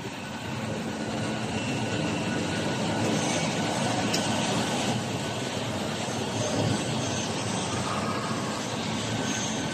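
A 1000 mm flexographic printing press running, a steady mechanical whir of its rollers as the printed film web feeds through, growing a little louder over the first few seconds. It is being run below its top speed of about 100 metres a minute because it is not yet up to temperature, and the speed is raised slowly.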